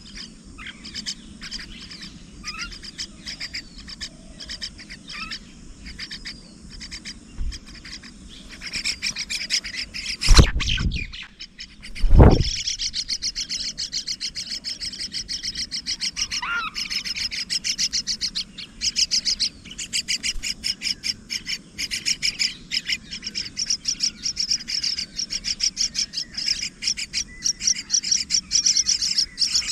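Mynas at a nest chirping rapidly over and over. The high chirps become a dense, steady chatter after the first third. Two loud thumps come a little under two seconds apart, around the middle.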